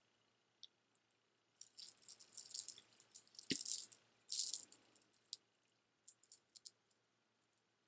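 Costume jewelry and beads clicking and rattling together as they are handled, in clusters of crisp clicks through the first half, then a few scattered clicks.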